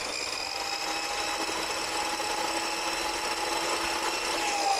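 Dekton DK-CS2400 2400 W brushed-motor chop saw with a 355 mm abrasive cut-off wheel, running free at full speed with a steady whine and not cutting. Near the end the pitch starts to drop as the motor begins to wind down.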